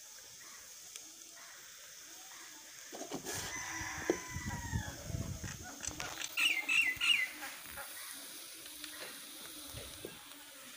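Chickens calling in the background: a falling call about three seconds in, then a quick run of about four short, high calls near the middle. A low rumble runs under the first call.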